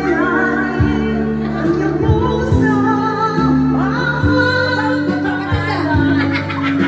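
Karaoke: a woman singing into a microphone over backing music with held bass notes.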